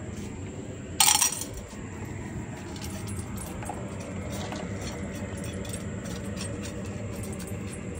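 Dry dog food dropped into a stainless steel bowl: one brief metallic rattle about a second in. A dog then eats from the bowl, with faint scattered clicks of kibble against the metal, over a steady low background rumble.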